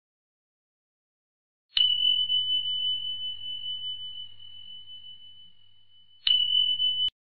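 A bell-ding sound effect of a subscribe-button animation, a single high pure tone struck twice. The first ding rings out and fades over about four seconds. The second, near the end, stops abruptly after under a second.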